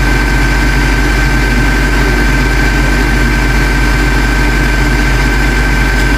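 Truck engine running steadily: a deep, even rumble with a constant thin whine above it, unchanging throughout.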